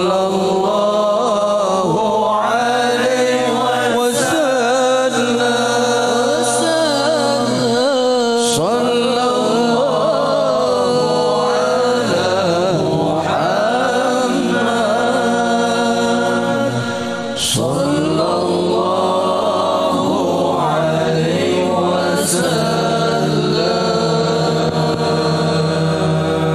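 A group of men chanting a devotional Islamic song (sholawat) together into microphones, the melody gliding and held over steady sustained low notes, heard through a PA, with a few sharp clicks.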